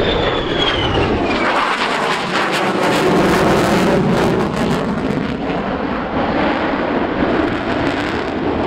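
Military jet making a loud low pass, its engine roar filling the air, with a high whine that drops in pitch during the first second and a half as it goes by.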